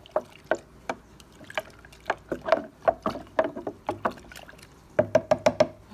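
Thick oatmeal-and-water slurry sloshing and slapping inside a plastic blender jar as the jar is handled, in a quick, irregular series of wet knocks.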